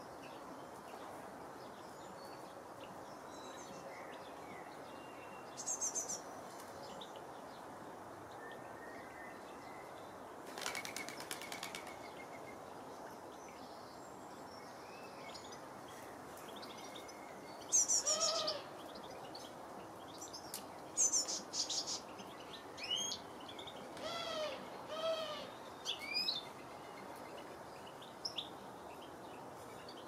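Garden birds calling around a seed feeder: scattered short chirps and calls, most of them in the second half, over a steady outdoor background hiss. About a third of the way in there is a brief flurry of wingbeats.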